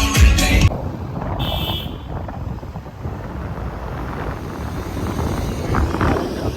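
Background music cuts off less than a second in, giving way to outdoor traffic and vehicle noise with wind buffeting the microphone. A brief high-pitched sound comes about a second and a half in.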